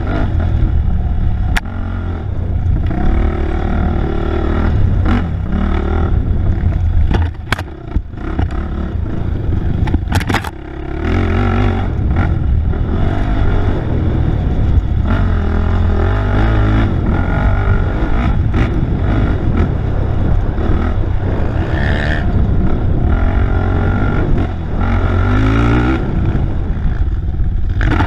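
Off-road race vehicle's engine, heard from the rider's mount, pulling hard and revving up and down again and again as the throttle is worked through the trail, briefly easing off twice a few seconds apart, with rattles and knocks from the rough ground.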